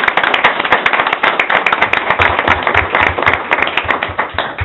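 A small group of people applauding, many hands clapping rapidly together, stopping right at the end.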